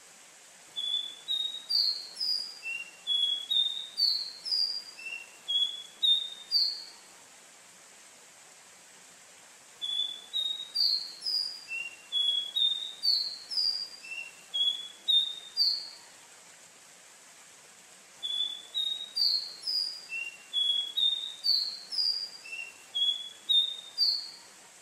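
Caboclinho, a Sporophila seedeater, singing. The same song phrase comes three times, each about six seconds long of quick, clear whistled notes stepping up and down, with pauses of about three seconds between, over a steady faint hiss.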